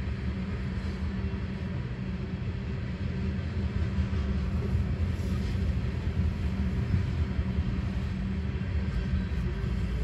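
Loaded train of tank cars rolling past with a steady low rumble, heard through the windshield of a car, mixed with road traffic going by closer; it grows a little louder about three seconds in.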